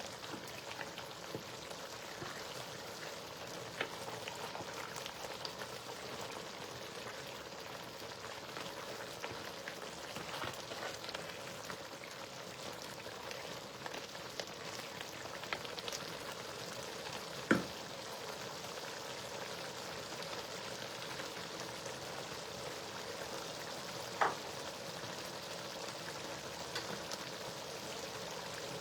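A pot of stew frying in red palm oil, with a steady sizzle and scattered crackles. Two short sharp knocks stand out, one a little past halfway and one near the end.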